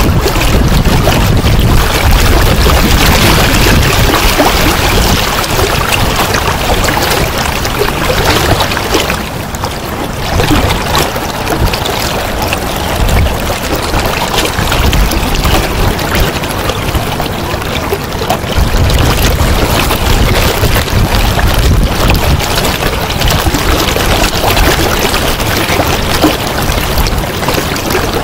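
The steady rush of a shallow, rippling river, with wind rumbling on the microphone in gusts, strongest in the first several seconds and again about two-thirds through.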